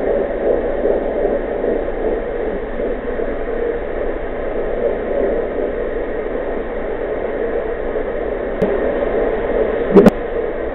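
Mommydop fetal Doppler's speaker playing a 14-week baby's heartbeat: a pulsing whoosh over steady static hiss. There is a sharp double knock near the end.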